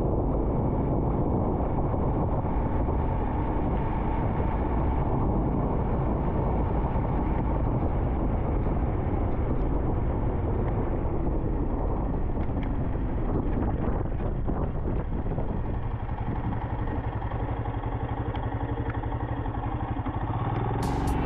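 Royal Enfield Himalayan's single-cylinder engine running at road speed, mixed with wind and tyre noise on wet pavement; it eases off somewhat in the last few seconds as the bike slows.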